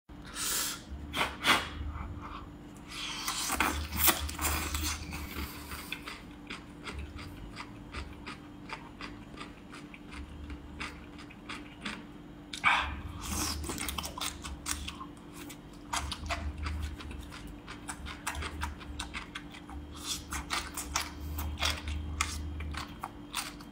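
A person crunching and chewing soy-sauce-marinated cucumber strips: a run of quick crisp crunches with wet mouth sounds, and a few louder bites.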